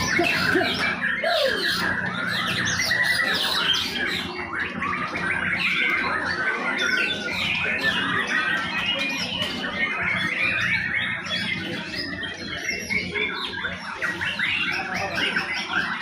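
Many caged white-rumped shamas (murai batu) singing at once: a dense, continuous chorus of overlapping rapid chirping phrases.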